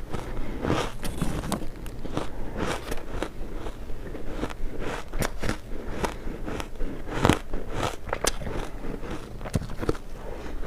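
Close-up crunching of refrozen block ice chunks being bitten and chewed, an irregular run of sharp cracks and crunches.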